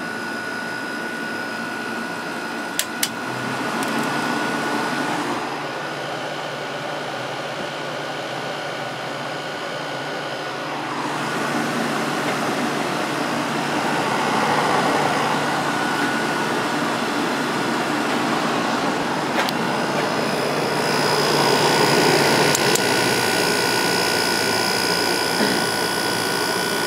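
2002 Whirlpool 5,000 BTU window air conditioner running on low fan with its Rechi Precision compressor cooling: a steady rush of air with a steady hum and whine, swelling louder a few times. Two sharp clicks about three seconds in.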